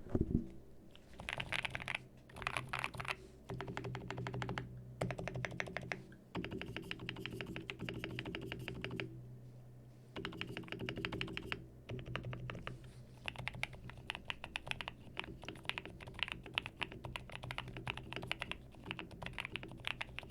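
Typing on a QK65 mechanical keyboard fitted with NovelKeys Cream+ linear switches with silicone stem inserts: fast runs of keystrokes broken by short pauses.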